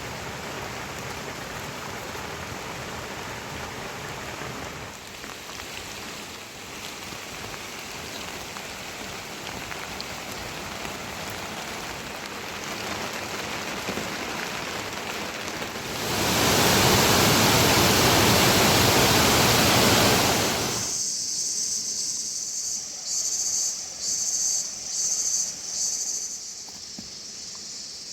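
Steady rain hiss, swelling to a louder rush for about five seconds before it cuts off suddenly. An insect then trills in several high, pulsing bursts.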